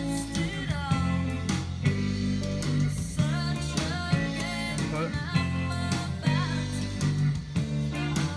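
A song with guitar and singing over a steady beat, played off tape by a Revox B77 Mk II reel-to-reel deck running at 15 inches per second and heard through monitor speakers.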